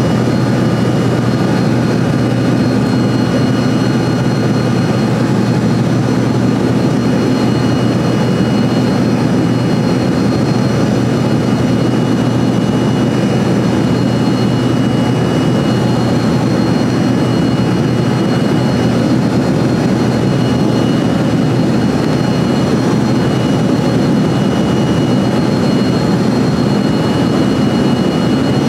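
Steady cabin noise of an Embraer ERJ-135 regional jet climbing out: an even, low rush from its two rear-mounted Rolls-Royce AE 3007 turbofans and the airflow, with a faint high engine whine held at a steady pitch.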